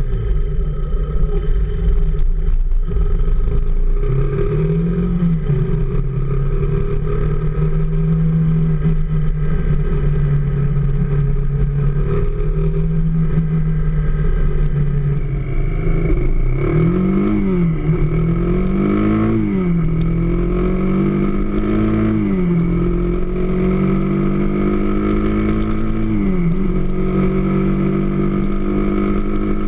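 AKT DS 200 motorcycle's single-cylinder engine idling, then revved in several short blips in the second half, each rising and dropping back to idle. The owner says the bike is making an unwanted noise.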